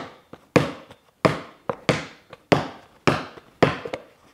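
Spalding outdoor basketball, freshly inflated to 7 psi, bouncing on concrete: about seven bounces a little over half a second apart, each a sharp hit that rings briefly and dies away.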